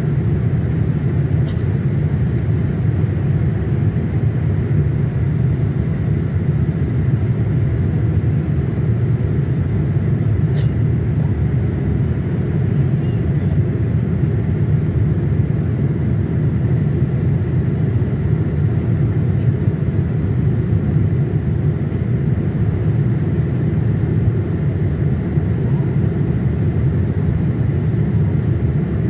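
Steady jet airliner cabin noise at a window seat over the wing, on approach for landing: an even low rumble of engines and rushing air, with a faint high steady tone.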